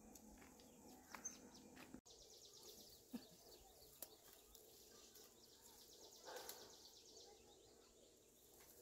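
Near silence: faint rural outdoor ambience with a few soft bird chirps and small scattered clicks.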